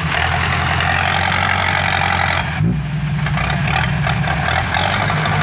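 A heavy vehicle engine running steadily, with a brief dip about two and a half seconds in.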